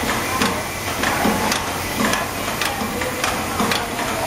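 Industrial rotary pancake-making machine running: its mechanism clacks in a quick, slightly uneven rhythm, about two to three times a second, over a steady hiss.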